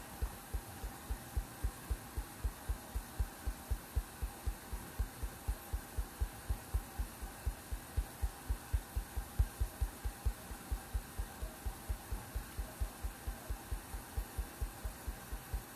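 Fingertip tapping a smartphone touchscreen over and over in a steady fast rhythm: dull low thumps about four a second.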